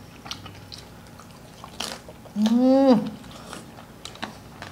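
Close-up mouth sounds of people eating crispy fried pork with sauce: scattered crunches and wet clicks of chewing. About two and a half seconds in there is one loud hummed 'mmm' of enjoyment, rising then falling in pitch.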